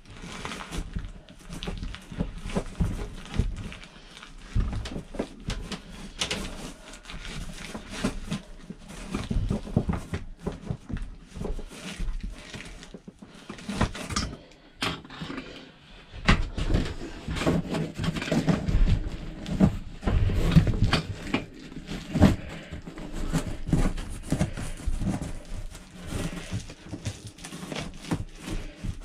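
Kraft-paper-backed fiberglass insulation being rolled and pushed up through a hole into a trailer's ceiling cavity: irregular rustling and crinkling with scattered knocks and bumps against the ceiling panel.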